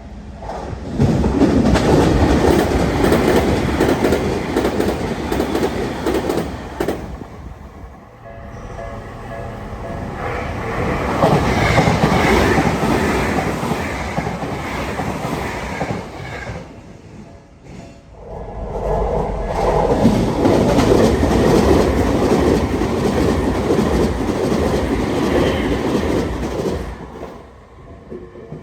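Tokyu Meguro Line electric commuter trains passing close by at a level crossing, wheels clattering over the rail joints. There are three passes in a row, each several seconds long, with short lulls between them.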